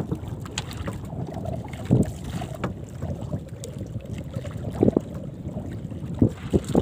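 Wind on the microphone and sea water washing around a small outrigger fishing canoe, with a few short knocks.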